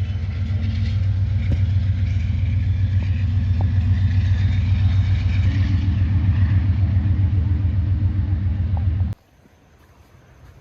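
Steady low rumble of a car in motion, cutting off suddenly about nine seconds in.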